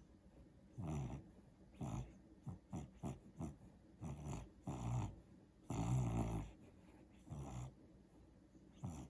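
Sleeping dog vocalising as it dreams: about eleven short, low, muffled sounds at irregular intervals, most brief, one longer and louder a little past the middle.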